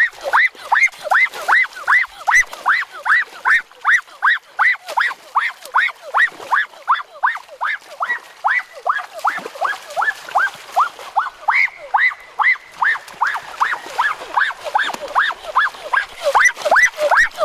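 An animal call repeated rapidly and evenly, about three times a second, each a short note that sweeps up and falls back, going on without a break.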